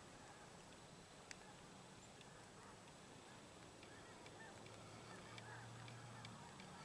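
Near silence, with faint distant bird calls and a few light clicks.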